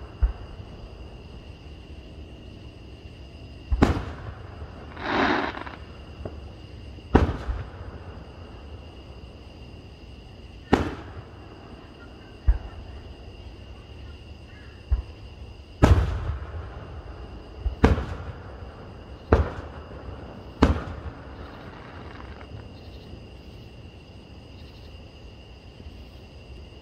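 Aerial fireworks shells bursting: about ten sharp booms a few seconds apart, each trailing off briefly, with one longer rushing burst about five seconds in. The booms stop about three quarters of the way through. Steady high insect chirring, like crickets, runs beneath.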